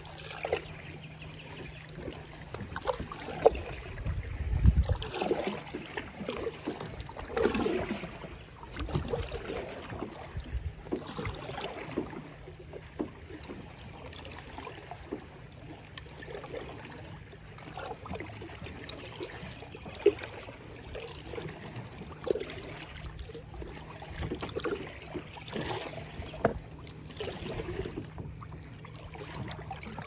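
Kayak being paddled: irregular splashing of paddle strokes and water lapping at the hull, with a few sharp knocks.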